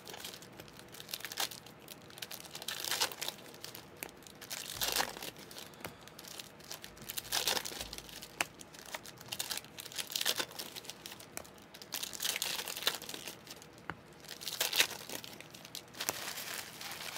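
Foil wrappers of trading-card packs crinkling in repeated bursts as they are torn open and handled.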